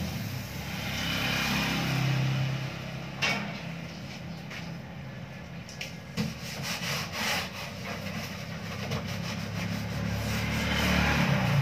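Quick rubbing strokes of a scrub pad against the lower front panel of an upright display fridge, in the second half. A vehicle engine hums in the background at the start and again near the end.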